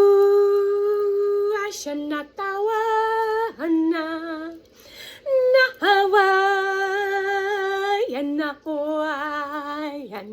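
A woman singing long wordless held notes as light-language toning. She holds one note for the first second and a half, then moves through a run of shorter held notes at different pitches with brief breaks, some with a slight waver.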